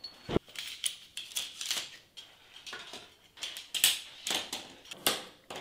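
Big Agnes Fly Creek HV UL1 shock-corded aluminium tent pole being unfolded, its sections clicking and clinking against one another as they are drawn apart and seated together, in a string of irregular light clicks.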